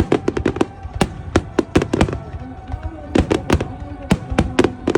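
Fireworks shells bursting in rapid succession: a dense run of sharp bangs and crackles, several a second, over music with long held tones.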